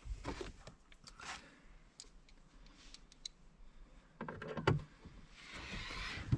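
Scattered small clicks and knocks of car-interior parts being handled, with one sharper click a little after the midpoint and a brief hissing rush near the end.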